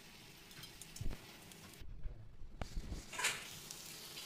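A metal ladle knocking and scraping against a stainless steel cooking pot, two sharp knocks about a second apart near the start and middle and a short scrape later, over a faint steady hiss.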